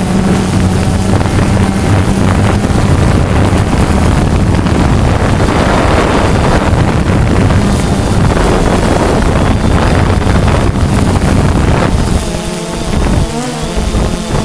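Quadcopter's electric motors and propellers buzzing steadily, heard through its on-board camera, with wind rushing over the microphone. Near the end the buzz dips in level and its pitch wavers as the motor speeds change.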